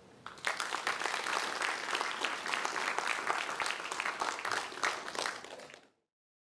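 Audience applauding, many hands clapping together; it starts about half a second in and cuts off suddenly near the end.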